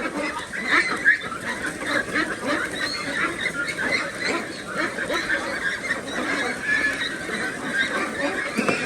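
A flock of ducks calling, many short overlapping calls at once in a steady, dense chatter.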